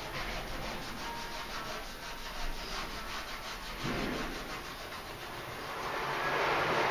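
Quick, repeated scratching strokes of a drawing tool on paper, about five a second, as shading or hatching is laid down. The scratching grows louder and more continuous near the end.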